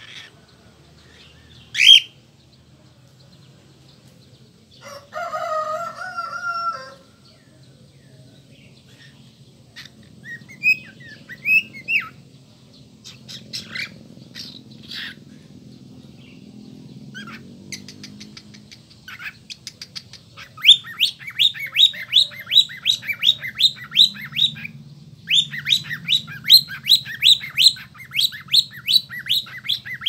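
Lutino cockatiel calling: a sharp chirp, then a longer, harsher call about five seconds in, then scattered whistled chirps. From about two-thirds of the way through come long fast runs of rising chirps, about four a second.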